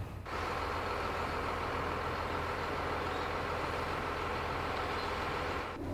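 An engine running steadily: a low hum under an even rushing noise. It starts abruptly about a quarter second in and stops just before the end.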